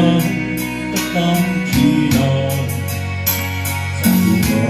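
A man singing a gospel song into a microphone, accompanied by guitar and a steady beat.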